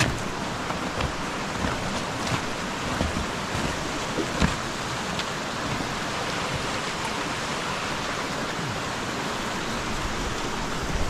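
Steady rushing hiss of running water and rain, from a rain-swollen mountain stream and trail runoff, with a few scattered light knocks.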